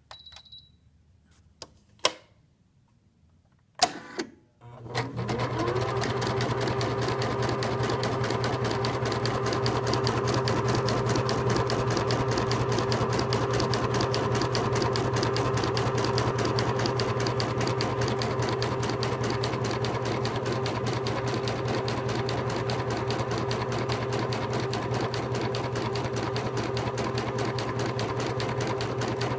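Home embroidery machine stitching a design: a few clicks, then about four and a half seconds in the motor starts with a short rising whine and settles into a steady, rapid stitching rhythm.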